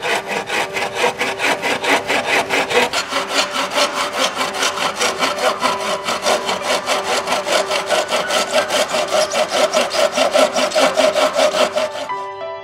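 Hand saw cutting through a green bamboo culm in quick, even back-and-forth strokes, about five a second. It stops abruptly near the end.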